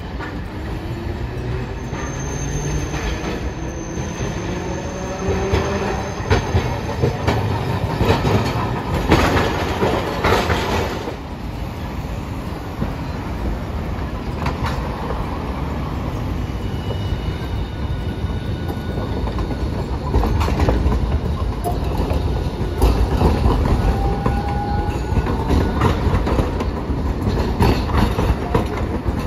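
Hiroshima streetcars running through a track junction: a rising motor whine as a tram gets under way, then steel wheels clacking over the rail joints and crossings as a low-floor Green Mover LEX tram passes close, with short high wheel squeals.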